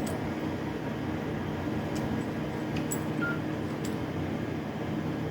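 Steady mechanical background hum, with three faint clicks about a second apart near the middle.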